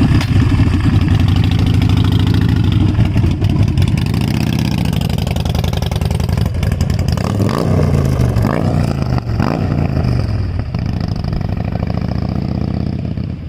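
Harley-Davidson motorcycle engine running loud, revving up and falling back several times in the second half.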